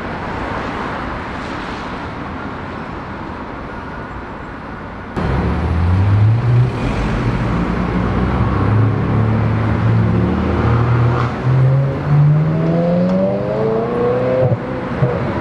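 Street traffic noise, then suddenly a Ferrari 360's V8 engine pulling away under throttle, its note climbing in pitch, falling back and climbing again as the car accelerates.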